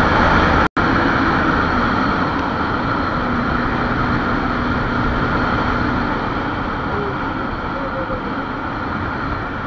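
Wind rushing over the microphone and a motorcycle running at highway speed, around 120 km/h, the noise easing a little as the bike slows. A very brief break in the sound comes under a second in.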